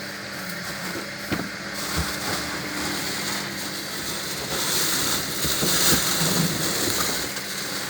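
Hoover HLW585DC washer dryer turning its drum to balance the wet load before the final spin: a steady motor hum, with the laundry knocking in the drum in the first couple of seconds and a swishing hiss that grows louder past the middle.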